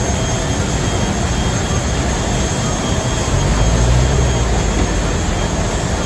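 Steady roar of a passenger jet's engines and airflow heard inside the cabin, with the low rumble swelling briefly about halfway through.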